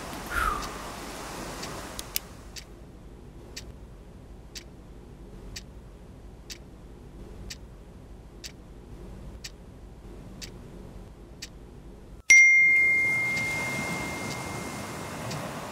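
Ticking about once a second, like a clock marking time, over near quiet after a short falling tone, then a single loud bell-like ding that rings on one pitch and fades over about three seconds.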